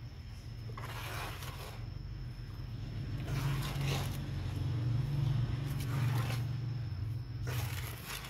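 A small hand trowel and gloved hands working through loose potting soil in a plastic basin: several short scraping, crumbling strokes, over a steady low hum.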